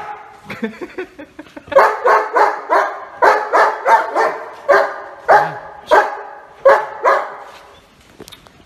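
A dog barking in a fast run of short barks, about three a second. The barks start about two seconds in and stop about seven seconds in.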